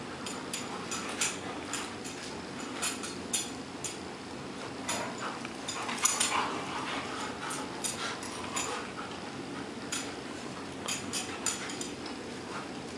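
Several poodles wrestling in play, scuffling and jostling, with many short sharp clicks and metallic jingles from their collar tags. The loudest burst comes about six seconds in.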